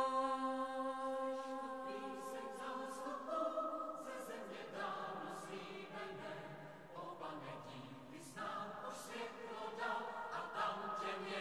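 Choir singing softly and slowly in Czech, several voices holding long notes together, entering after a held chord dies away in the first second.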